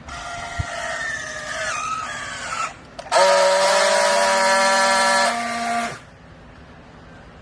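Vertical downstroke clothing baler's hydraulic power unit whining under load. A tone that sags in pitch for under three seconds, a brief break, then a louder steady whine for about three seconds that cuts off suddenly.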